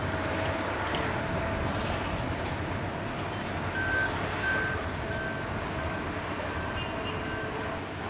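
Steady rumble of vehicles or heavy machinery. From about four seconds in, a vehicle's reversing alarm beeps at one high pitch, roughly every two-thirds of a second, growing fainter.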